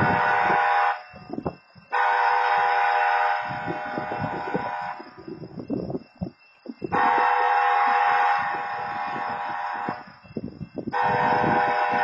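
Railroad crossing wayside horn, the automated horn mounted at the crossing, sounding a train-horn chord in repeated blasts of about one to one and a half seconds, four of them, each trailing off more quietly. Low rumbling between the blasts.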